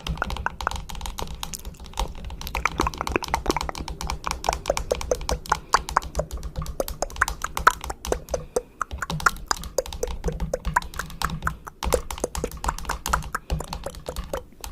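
Rapid, irregular clicking and tapping, several clicks a second, with a short break about twelve seconds in.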